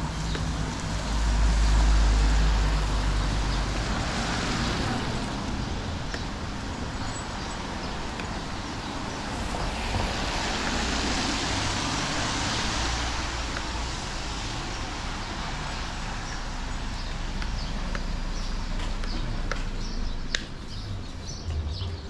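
Wind buffeting the microphone, with a heavy low rumble early on, under road traffic swelling past twice, about 4 seconds in and again around 10 to 13 seconds.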